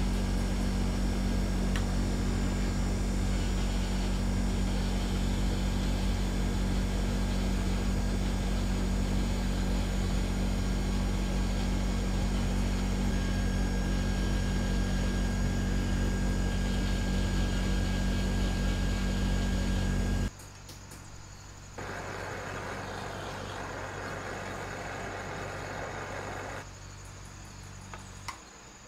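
Rotary tool handpiece running steadily with a white abrasive point, grinding and polishing silver filigree. It stops abruptly about two-thirds of the way through, and a quieter steady hiss follows for several seconds.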